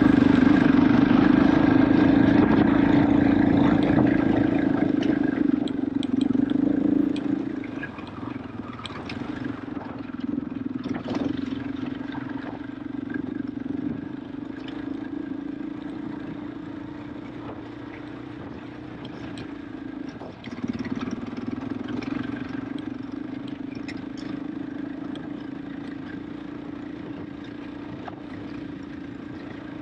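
KTM 500 EXC-F's single-cylinder four-stroke engine running under throttle, loud for the first seven seconds or so, then settling to a lower, steady note. It dips briefly about twenty seconds in, and a few sharp clicks come around ten seconds in.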